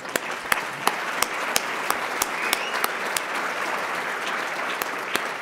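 Audience applauding: a steady wash of many hands clapping, with single sharper claps standing out at an even pace, about three a second.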